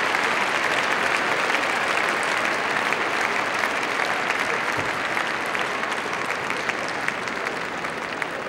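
Large arena crowd applauding, a dense steady clapping that slowly dies down.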